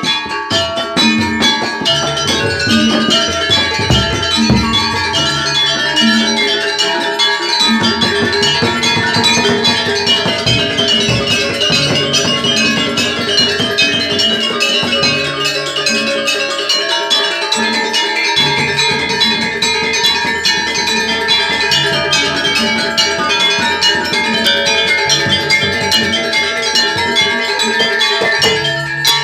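Gamelan ensemble playing jaranan music: bronze metallophones and gongs ringing over a steady drum rhythm.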